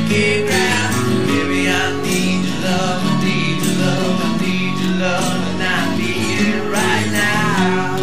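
Music with guitar, playing steadily.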